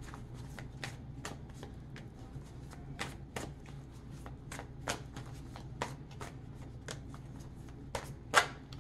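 A deck of tarot cards being shuffled by hand: a string of soft, irregular card slaps, two or three a second, with a sharper snap near the end.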